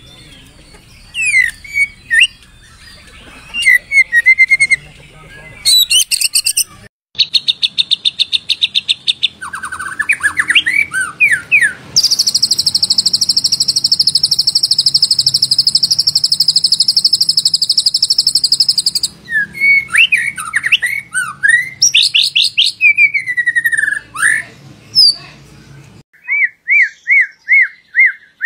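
White-rumped shama song: a varied run of loud whistled, slurred and chattering phrases. A long, fast, high rattling trill lasts about seven seconds in the middle, and a series of quick repeated whistled notes, about four a second, comes near the end.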